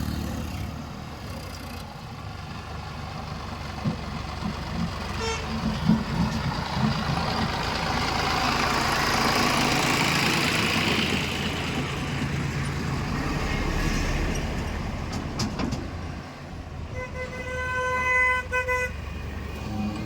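Heavy vehicle engine running with a steady low drone, and a rushing noise that swells and fades in the middle. A vehicle horn honks a few times near the end.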